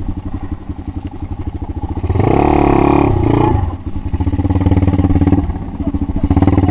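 Dirt bike engine running at a low, pulsing idle, revved hard about two seconds in for a second and a half, then revved up more gently twice more.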